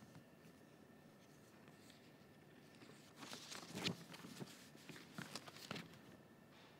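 Near silence: room tone of a large hall, with faint rustling and a few soft clicks between about three and six seconds in.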